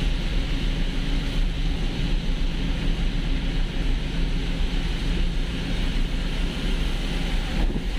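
Steady road noise inside a car driving on a rain-soaked expressway: a low engine and drivetrain hum under the even hiss of tyres on wet pavement.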